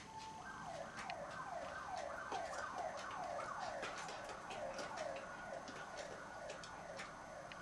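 A faint siren-like wail that slides down in pitch over and over, about two or three times a second, starting just after the beginning and fading near the end. Faint ticks, likely from a wall clock, sound alongside it.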